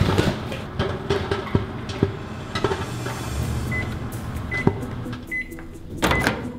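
Microwave oven keypad beeping as its buttons are pressed: four short high beeps, evenly spaced a little under a second apart, among small clicks and knocks. A louder noisy burst comes near the end.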